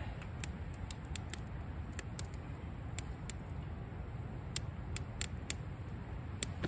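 Small wood fire of sopping-wet kindling crackling, with sharp irregular snaps and pops as the damp sticks steam more than they smoke. A steady low rumble runs beneath.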